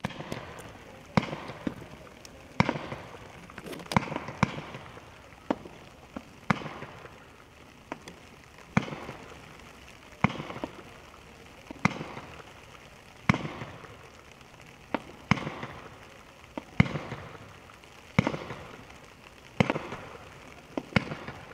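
Absolute Fireworks 'Silent Nite' low-noise 50-shot firework cake firing shot after shot: sharp pops about every second and a half, now and then two close together, each with a short fading tail.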